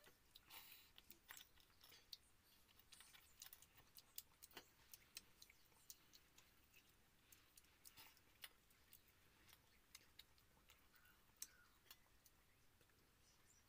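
Faint eating sounds: scattered irregular clicks of fingers against a steel bowl of watered rice, and chewing.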